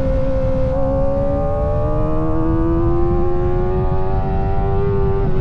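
Kawasaki Ninja ZX-4RR's 399 cc inline-four engine running at high revs under acceleration: a high-pitched wail that climbs steadily in pitch and dips near the end. A rough rush of wind noise lies underneath.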